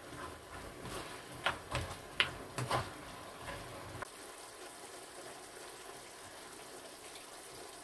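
Onions and meat frying in a pan with a faint, steady sizzle. A few light knocks of a wooden spatula against the pan come between about one and a half and three seconds in.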